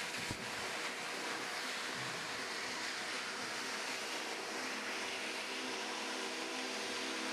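High-velocity dog grooming dryer running steadily, blowing air through a flat hose nozzle into wet fur, with a steady motor hum under the rush of air. There is one short knock about a third of a second in.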